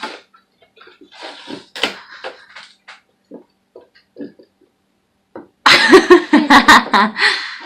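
Toy box packaging being handled and pulled open: scattered soft rustles and taps, then a loud burst of crackling and tearing with sharp clicks for the last two seconds.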